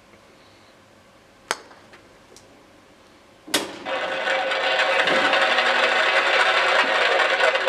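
A putter taps a golf ball on the Putting Panorama electronic putting simulator's green about one and a half seconds in. About two seconds later there is a sharp click as the ball drops into the cup, and the simulator then plays a loud recorded sound effect with voices in it through its speaker.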